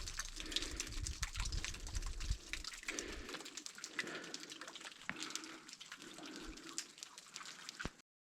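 Meltwater trickling and dripping off a frozen waterfall, with many small ticks and crackles. Wind rumbles on the microphone for the first few seconds. The sound cuts off abruptly near the end.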